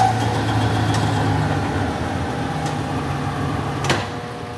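Hardinge DSM-59 lathe's spindle and two-speed motor running, the sound dropping as the machine comes down from high speed toward low speed. A sharp click about four seconds in.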